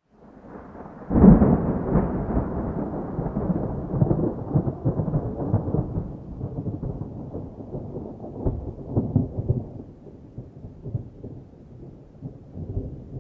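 Thunder: a sudden loud clap about a second in, then a long, uneven rumble that slowly fades, with a few more rolls later on.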